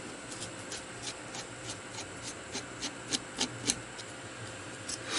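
Light, irregular ticks and scrapes of a small screwdriver tip working against the steel body of a three-jaw lathe chuck while the pinion gears are being taken out.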